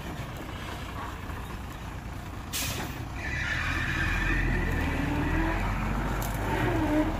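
Dump truck's diesel engine running, with a short hiss of released air brakes about two and a half seconds in, followed by a high squeal for a couple of seconds.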